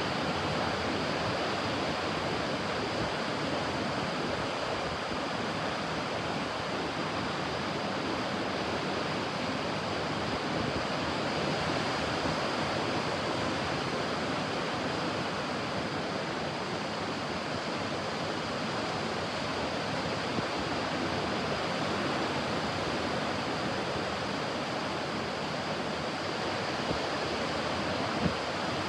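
Ocean surf on a beach, a steady, even wash of breaking water with no single wave standing out. A brief sharp tick sounds near the end.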